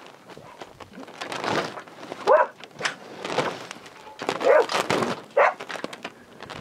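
Dog barking at dolphins, a few separate sharp barks, with short rushing bursts of noise between them.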